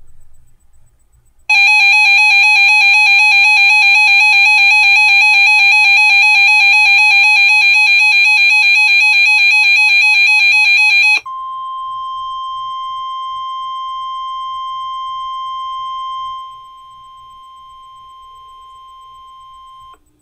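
A loud electronic alarm tone, rapidly pulsed, sounds for about ten seconds. It is followed without a gap by the steady 1050 Hz NOAA Weather Radio warning alarm tone, which drops in level partway through and then stops just before the warning message.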